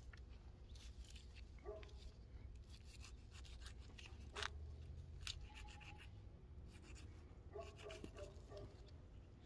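Faint, scattered clicks and scrapes of a knife cutting meat off an elk's rib section.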